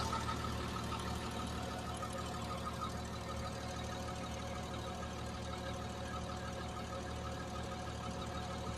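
Bulldozer's diesel engine running steadily.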